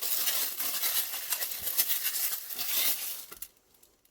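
Plastic packaging crinkling and rustling as it is handled and opened, stopping about three and a half seconds in, followed by a few faint clicks.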